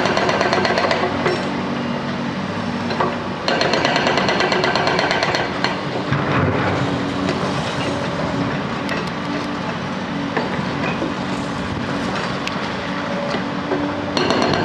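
Hydraulic breaker on a Hyundai HX220L excavator hammering concrete in rapid bursts: briefly at the start, again from about three and a half to six seconds in, and once more near the end. Between the bursts the excavator's diesel engine runs, with scattered knocks.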